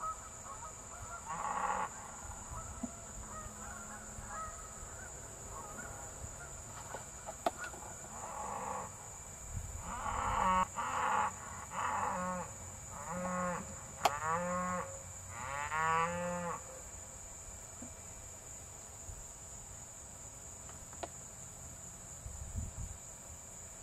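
Hereford cattle mooing: a run of short calls, about six close together in the middle, with one earlier call.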